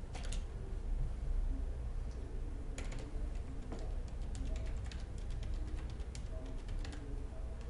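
Computer keyboard keys clicking as a web address is typed, in short irregular runs of keystrokes, over a low steady hum.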